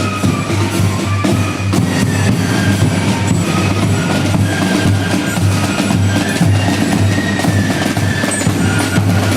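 Fife and drum band playing: a high fife melody over snare and bass drums.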